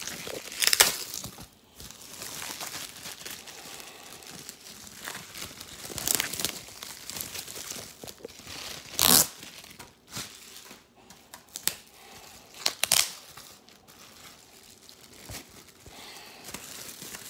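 Plastic packaging crinkling and tearing as it is worked open by hand, a steady crackle broken by several louder rips.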